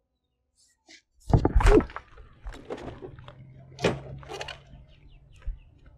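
A run of knocks and thuds, the loudest about a second and a half in and again near four seconds, over a faint low hum.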